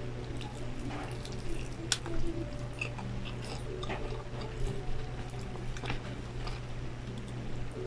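Close-miked chewing and biting of crispy fried chicken: scattered crunches and wet mouth clicks, the sharpest about two seconds in, over a steady low hum.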